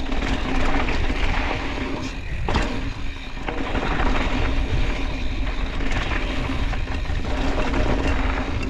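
Mountain bike descending a dirt flow trail: a steady rumble of wind on the handlebar-level microphone over the tyres rolling on gravel and the bike rattling, with a few sharp knocks from bumps, including one about two and a half seconds in.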